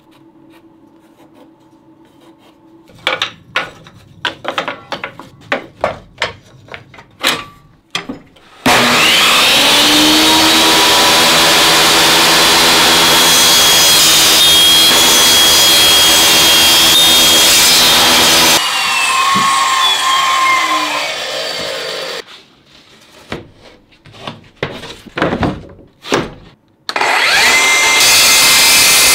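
Benchtop table saw cutting pallet wood. Wood knocks about on the saw table, then the saw starts with a rising whine and runs for about ten seconds through a cut before winding down with a falling pitch. More knocks follow, and the saw starts up again near the end.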